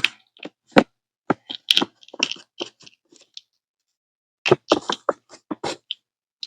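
Head lice being crushed and popped: a run of sharp crunchy cracks and pops, a pause of about a second, then a second quick run.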